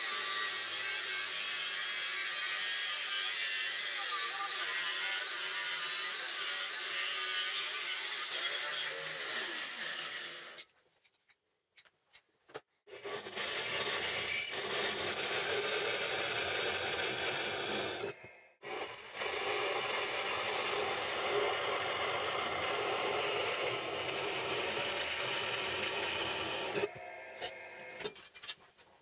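Angle grinder with a cut-off disc running steadily through steel angle iron for about the first ten seconds. After a short pause with a few clicks, a drill press drills into a steel piece in two long runs with a brief stop between.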